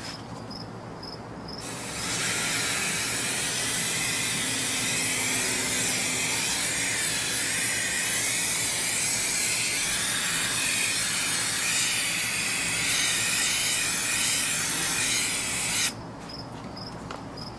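Aerosol can of Rust-Oleum LeakSeal rubber sealant spraying in one continuous hiss for about fourteen seconds, starting about two seconds in and cutting off shortly before the end. Crickets chirp faintly, about twice a second, before and after the spray.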